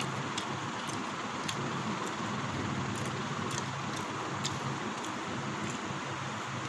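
Steady background noise: an even hiss with a low hum underneath, and a few faint ticks.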